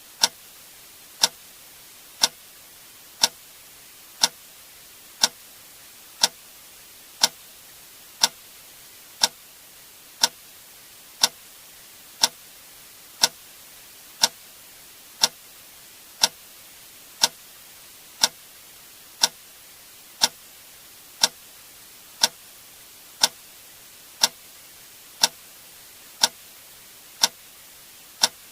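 A sharp click sound effect repeating once a second, perfectly evenly spaced, over a faint steady hiss.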